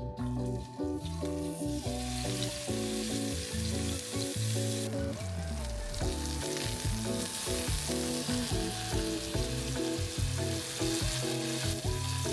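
Food sizzling in a hot frying pan, a steady hiss that grows louder about five seconds in, over background music.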